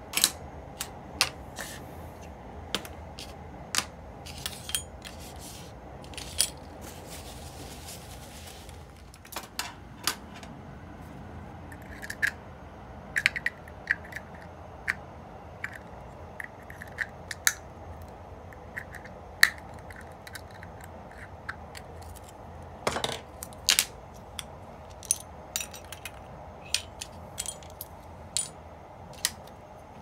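Small metal parts of an Abu Garcia Ambassadeur 2500C baitcasting reel clicking and clinking as they are handled and set into metal parts cups, with tweezers and a screwdriver tapping against them. The clicks come irregularly, some with a brief ring, over a steady low hum.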